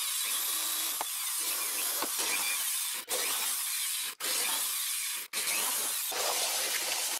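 Electric drill with a twist bit boring through a wooden workbench top, a continuous grinding whirr of the bit cutting wood. The sound cuts off abruptly three times, where the drilling of one hole jumps to the next.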